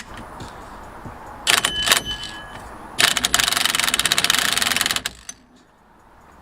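Impact wrench tightening the steering wheel's retaining nut: a short burst about a second and a half in, then a longer run of rapid hammering for about two seconds that stops abruptly.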